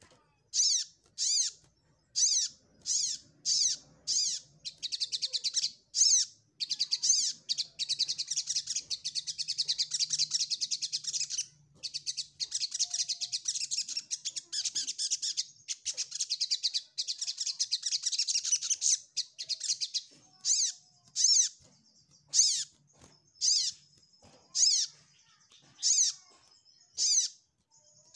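Sunbird (sogok ontong) calling: sharp, high chirps repeated about once a second, breaking twice into long, rapid twittering runs of several seconds each, then back to spaced chirps. These are territorial calls given in search of a rival.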